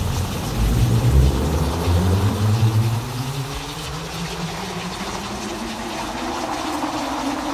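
Synthesized thunderstorm sound: a heavy low rumble for about the first three seconds that then eases off, over a steady rain-like hiss, with low tones sliding slowly in pitch.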